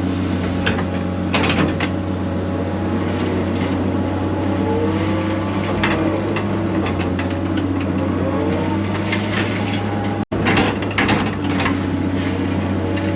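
Excavator's diesel engine running steadily under load, with a hydraulic whine that rises and falls in pitch as the controls are worked, and scattered knocks from the bucket working the ground. The sound cuts out for an instant about ten seconds in.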